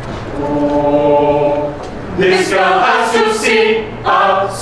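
A mixed chamber choir singing: a held chord for the first couple of seconds, then a livelier passage of sung words with crisp hissing 's' sounds.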